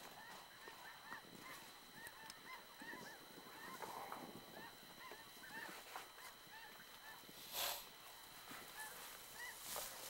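A distant flock of geese calling, faint, many short honks overlapping several times a second. A brief burst of noise cuts across it about two-thirds of the way in.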